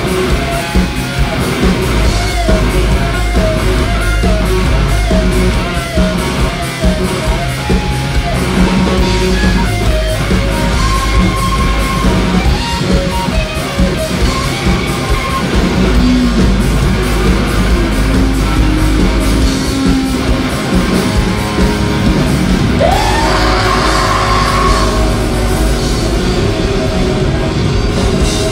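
Live rock band playing an instrumental passage: loud electric guitar over bass and drums. A held note wavers in the first six seconds, and another note slides up and holds about 23 seconds in.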